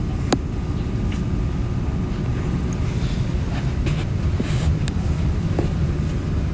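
Steady low rumble of background room or microphone noise, with a few faint clicks.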